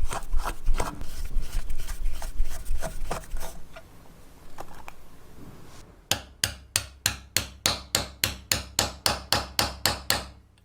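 Irregular knocks and rubbing for the first few seconds, then a hammer striking steadily, about four blows a second, for the last four seconds or so.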